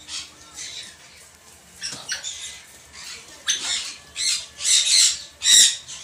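Caged parrots giving a run of short, harsh squawks, growing louder toward the end, with the two loudest near the end.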